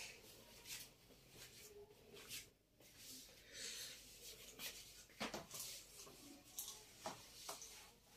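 Faint rubbing of a duster wiping writing off a whiteboard, with a few light knocks against the board.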